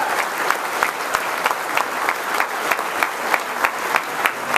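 Large audience applauding steadily, with one nearby pair of hands clapping out about three times a second above the crowd.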